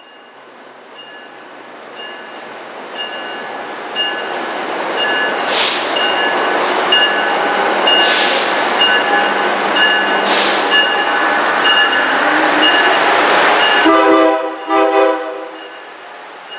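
An Amtrak train approaching and passing, its noise building steadily louder over the first fourteen seconds. A steady, regularly repeated ringing sounds throughout. Near the end the horn sounds in two short blasts before the train noise falls away.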